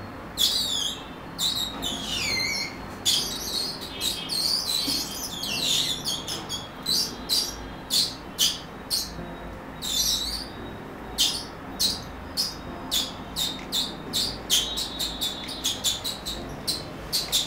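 Red-hot steel ball, heated to about 1000 degrees, pressed into water-swollen Orbeez water beads, making high whistling squeals as the beads burn. The first squeals are longer and slide down in pitch; later come short squeals in quick succession, several a second near the end.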